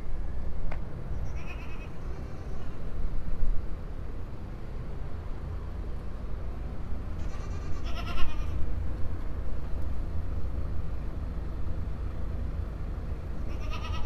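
Goats bleating a few times, the loudest call about eight seconds in, over a steady low rumble.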